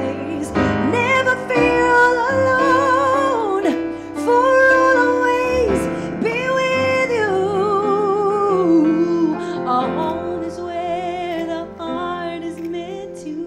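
A woman singing a slow ballad live into a microphone over piano accompaniment, holding long notes with vibrato.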